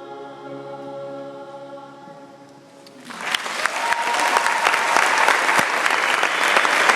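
The last held note of a sung song with accompaniment dies away. About three seconds in, an audience bursts into loud, sustained applause.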